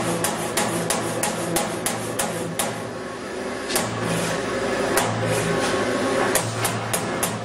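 Euromac ZX CNC turret punch press punching sheet steel: sharp punch strikes about three a second over a steady machine hum, stopping for about a second partway through, then two single strikes and another quick run near the end.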